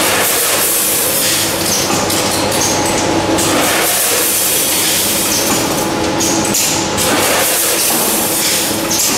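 Automatic granule packing line running: conveyor and a rotary can-sealing machine clattering, with containers clinking, over a constant high hiss.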